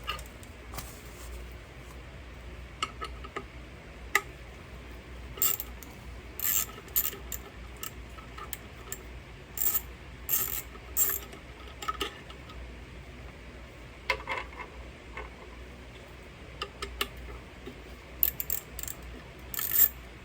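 Hand tools and small metal hardware clicking and clinking as a bracket is unbolted, with scattered sharp clicks and a few quick runs of clicks.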